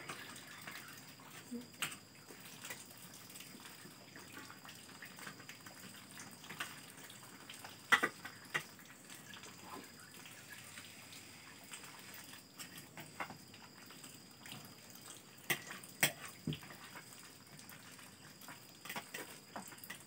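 Spoons and forks clinking and scraping against plates and bowls during a meal: scattered sharp clicks over a quiet background, the loudest about eight seconds in and twice around sixteen seconds.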